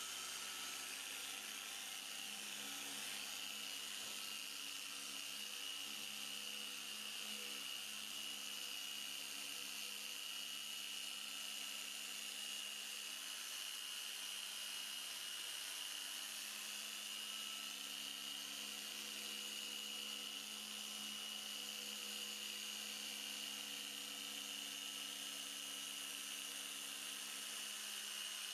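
Small handheld electric polisher running steadily with a constant high whine as its spinning pad works a plastic headlight lens.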